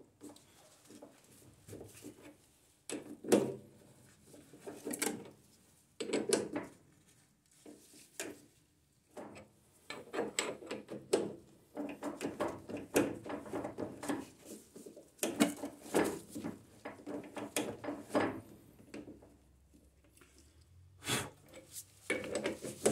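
A die being worked by hand to cut an M12 thread on a steel rod held in a stopped lathe's chuck: irregular scraping, creaking strokes as the die bites, a few at first and then a dense run in the middle. The cut is heavy going because the material is tough and the groove deep.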